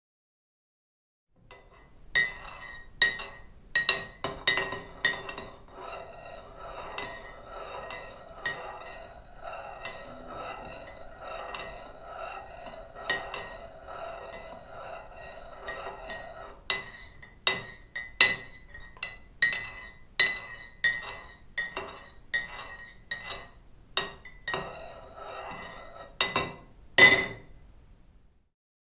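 A teaspoon stirring tea in a cup, clinking repeatedly against the sides with a bright ringing tone. The clinks thin out through the middle stretch, where the steady swish of the stirred tea comes through, and pick up again towards the end, with the loudest clink near the close.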